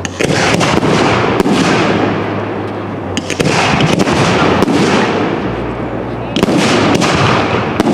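Professional aerial fireworks shells bursting overhead: several sharp bangs a second or more apart, over a dense, continuous crackling rumble from the bursting and falling stars.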